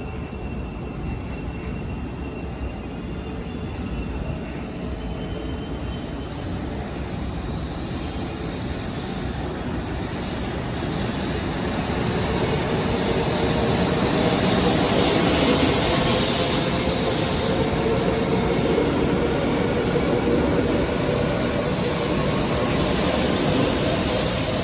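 Shinkansen bullet train running. Its rumble and rushing noise grow louder from about ten seconds in, peak around fifteen seconds and stay loud, with a faint steady whine underneath.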